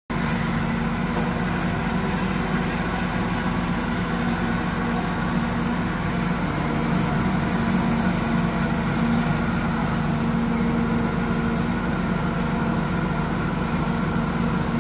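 Excavator's diesel engine running steadily under a constant hum, with no clear revving or stops.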